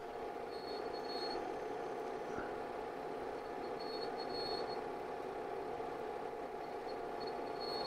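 Bell & Howell 462A 8mm film projector running with a steady whir and hum, and a faint high whine coming and going.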